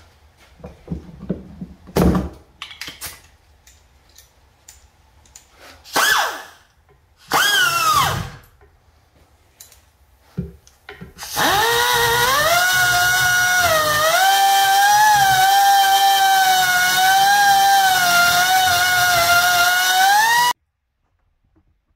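Die grinder with an abrasive sanding roll smoothing the rough square ports of a cast-iron intake manifold. A high whine starts in two short bursts and then runs steadily for about nine seconds. Its pitch sags and recovers as the abrasive bites, and it cuts off suddenly. A single knock comes about two seconds in.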